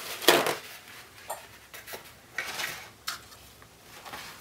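Small items being picked up and set down on a hard work surface. A sharp clatter comes a moment in, followed by a few lighter clicks and a short rustle.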